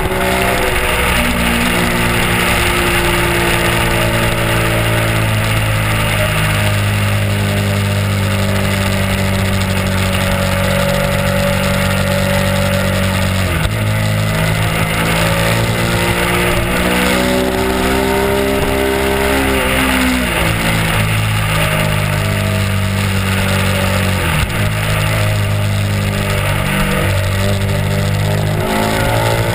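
Honda RC51's 999 cc V-twin engine running under way, its pitch climbing and falling with the throttle, with sharp drops in pitch about halfway through and twice more later.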